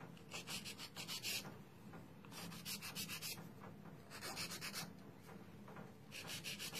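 A worn, fine-grit hand nail file rasps back and forth across the tip of a hardened acrylgel nail, squaring it off. It comes in three short runs of quick strokes, with pauses between them. Rain hisses faintly in the background.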